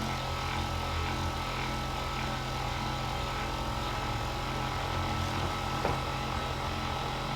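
Handheld electric massager running steadily against the lower back, giving a low, even buzz.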